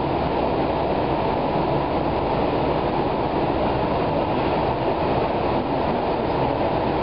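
Cleveland RTA Blue/Green Line light-rail car running at steady speed, heard from inside the car: an even rumble of wheels on rail, with no separate clicks or squeals.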